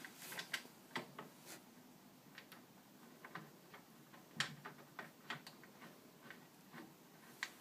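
Irregular light clicks and taps of an Allen key turning a bolt into a wooden Adirondack chair arm, with the sharpest click about four and a half seconds in.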